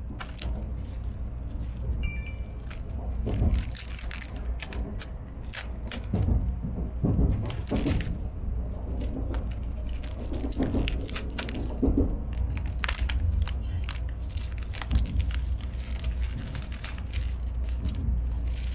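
Clear plastic film crinkling and crackling in repeated short bursts as it is pulled off a boxed bento, over the steady low rumble of a Shinkansen passenger cabin.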